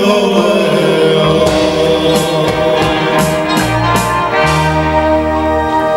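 Live band playing a pop song: electric bass guitar, keyboards, guitar and drums with singing, the bass stepping between low notes and several cymbal crashes in the middle of the passage.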